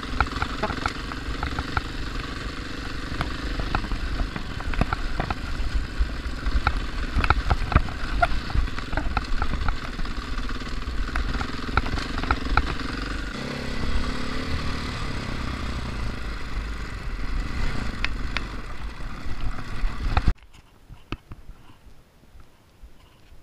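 Dirt bike engine running as it rides over a rocky trail, with frequent sharp clicks and rattles from the bike jolting over stones and a brief rev about 14 seconds in. The sound cuts off suddenly about 20 seconds in, leaving only a faint background.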